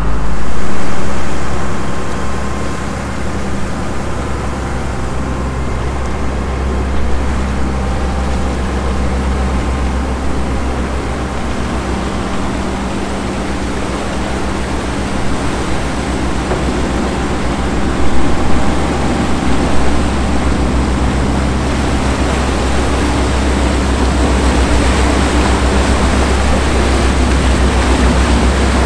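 Fishing boat's engine running steadily underway, a low drone under the rush of water from the wake and wind.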